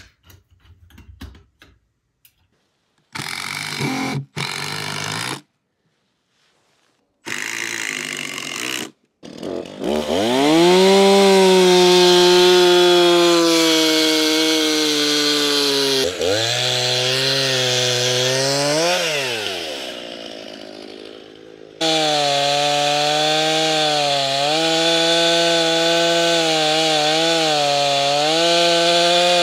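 Stihl gas chainsaw crosscutting through a log, its engine running steadily under load. The engine dips, revs up and down and dies away in the middle, then a second cut starts abruptly and runs with small wavers in engine speed. Before the cutting there are two short loud sounds, each a second or two long.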